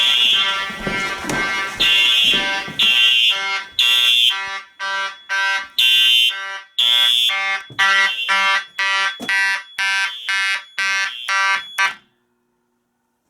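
Several fire alarm horns sounding together in a pulsing march-time pattern, overlapping tones about twice a second with some longer blasts. The whole system is a test, and it cuts off suddenly near the end as it is silenced.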